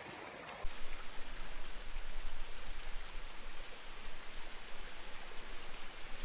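Steady rushing hiss of water, with a constant low rumble beneath, starting abruptly about half a second in.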